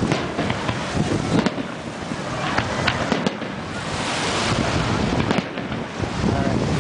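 Aerial fireworks going off: several sharp bangs, a second or two apart, over a steady crackling rumble, with wind blowing on the microphone.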